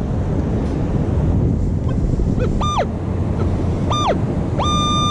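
Minelab metal detector giving its target signal: two short high beeps that sweep up and back down, then a long held high tone near the end. This is the detector responding to a coin-range target reading 13, a nickel lying in the side of the hole. Strong wind and surf noise run underneath.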